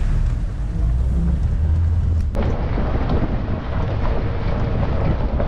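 Safari vehicle driving, its engine running with a steady low rumble and road noise; the sound changes abruptly a little over two seconds in.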